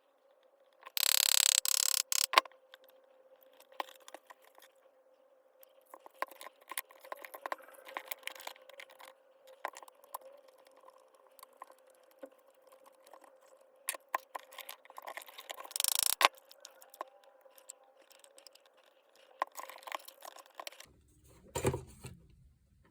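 Hand-work on a reciprocating saw being taken apart: small metal parts clicking, tapping and scraping at irregular intervals, with two short louder rushing noises, one about a second in and one about two-thirds of the way through. A faint steady hum runs underneath and stops near the end.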